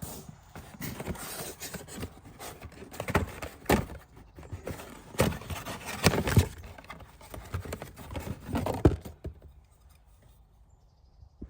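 Irregular clinks, knocks and scrapes of hand tools and parts being handled while working on a car's oil filter mount, for about nine seconds before it goes quiet.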